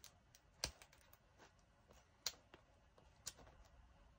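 A few faint, irregular clicks and crinkles of fingers and fingernails picking at the plastic-covered diamond painting canvas.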